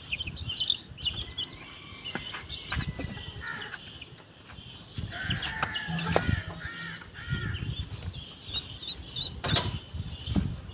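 Chicks peeping in many short, high chirps, with hens clucking a little past the middle. A couple of sharp bursts of noise stand out, one near the middle and one near the end.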